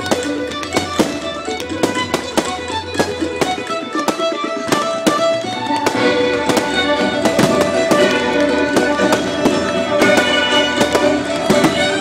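Fireworks going off in a rapid string of sharp bangs and cracks over music with sustained notes.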